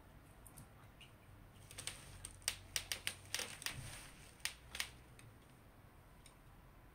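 A quick, irregular run of light clicks and crackles, about a dozen over some three seconds, from a wet cotton pad being handled while a clay face mask is rinsed off.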